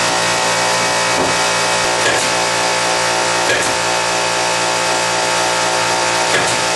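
Electric air compressor running steadily with a loud, even hum, then cutting off abruptly near the end. A few faint knocks sound over it.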